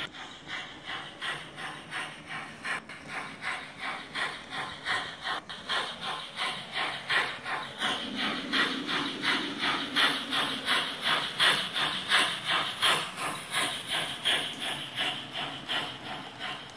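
Model steam locomotive's sound chuffing in a steady rhythm of about three exhaust beats a second, with a hiss in each beat. It grows louder around the middle as the engine comes out of the tunnel.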